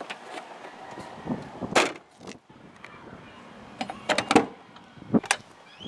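1989 Chevrolet Cavalier Z24 body hardware: a single heavy knock about two seconds in, fitting the trunk lid being shut. Then, near the end, a quick run of clicks and knocks from the door handle and latch as the door is opened.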